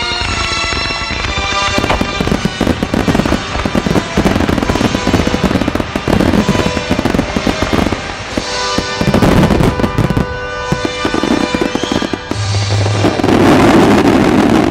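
Aerial fireworks bursting in quick succession with dense crackling, over music playing on loudspeakers. The music is clearest at first, and the barrage thickens from about two seconds in.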